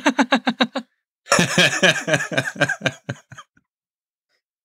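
Laughter: a short run of quick rhythmic 'ha-ha' pulses, then after a brief gap a longer, fuller burst of laughing that thins out and stops a little past three seconds in.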